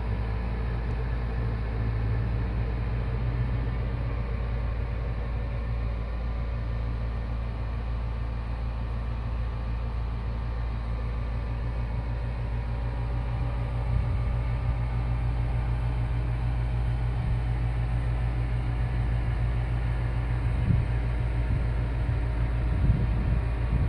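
A steady low hum with two soft knocks near the end.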